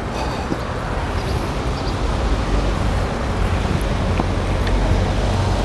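Road traffic: a motor vehicle's low engine rumble and tyre noise, growing gradually louder as it draws near, with a few faint clicks of handling on the table.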